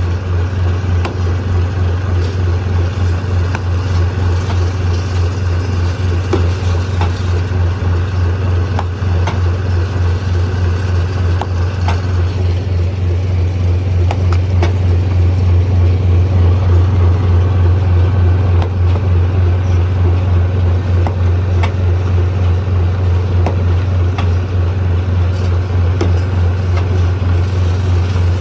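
Stone crusher machinery running: a steady, loud, fast-pulsing low drone with scattered sharp clicks and knocks over it.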